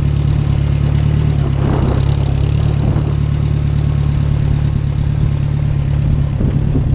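Small farm tractor's engine running steadily under way, a constant low drone.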